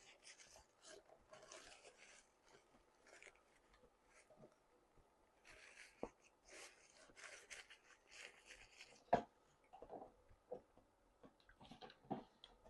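Quiet close-up chewing: wet mouth smacks and munching, with a few sharper clicks, the loudest about nine seconds in.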